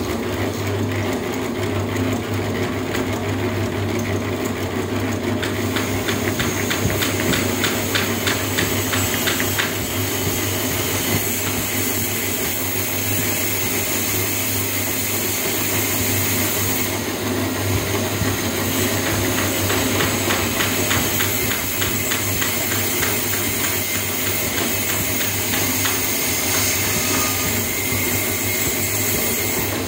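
A machine running steadily at a construction site, with a constant low hum and stretches of fast, even ticking.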